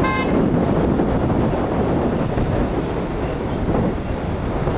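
Wind buffeting the microphone over a steady rumble of highway traffic, with a brief high tone right at the start.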